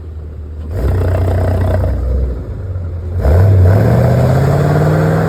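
C5 Corvette's 5.7-litre V8 pulling away hard. It rumbles low, gets louder about a second in, then about three seconds in jumps to full throttle, its note climbing steadily as the car launches into a burnout.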